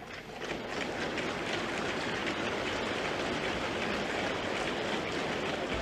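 Sustained applause from a large audience, swelling up within the first half-second and then holding steady.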